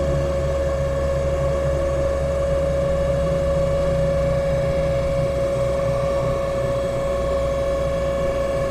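Fiat 126p's small air-cooled two-cylinder engine running steadily at highway speed, heard inside the cabin: a constant low drone with a strong, steady whine over it.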